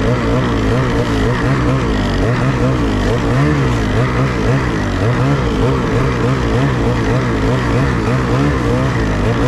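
Ski-Doo Freeride snowmobile's two-stroke engine running under varying throttle while riding, its pitch rising and falling over and over.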